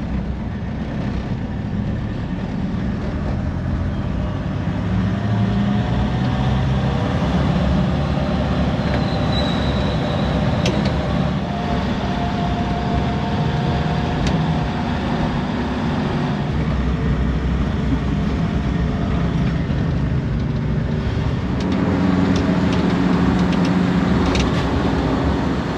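Songthaew pickup-truck taxi riding along a road, heard from aboard: steady engine running with road and wind noise. The engine note shifts up and down as it changes speed.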